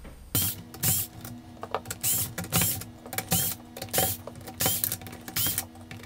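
Cordless electric screwdriver running, backing out the small screws of a Roomba's base plate: a steady motor whine with a sharp click about twice a second.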